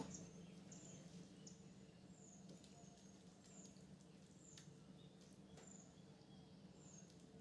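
Near silence: a faint steady hum with faint, short high chirps that fall in pitch, about one every second, and a few soft clicks.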